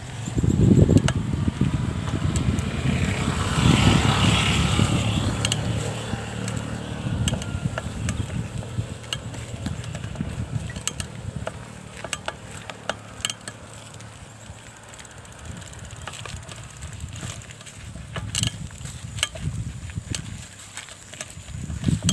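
Bicycle in motion: irregular clicking and rattling over low rumbling noise, the rumble loudest in the first few seconds and fading.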